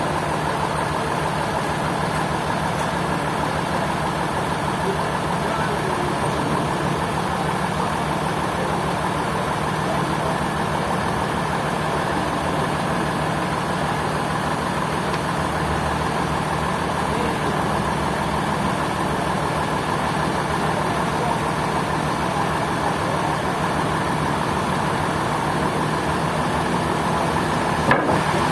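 A heavy engine runs steadily at an even speed, with one short knock near the end.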